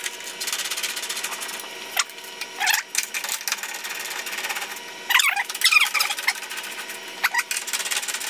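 Ratchet with a 10 mm socket clicking rapidly as it backs out the grille's top bolts one after another, with brief pauses between bolts and a few short squeaks.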